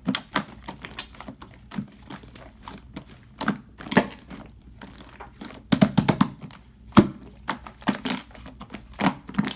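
Coil slime being pressed and squished by hand, giving sticky clicking and crackling pops in uneven clusters, with the sharpest snaps about 4 and 7 seconds in.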